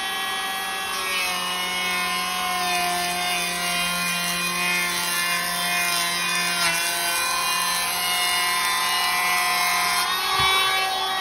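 Makita DKP181 cordless brushless electric planer running steadily as it shaves the long edge of a door to trim its width. Its pitch drops slightly about a second in as the blades bite and rises again near the end.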